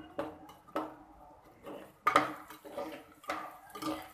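Stirring utensil scraping and knocking against a pan as sliced onions are stirred while they fry in sesame oil; about seven uneven strokes, the loudest about two seconds in.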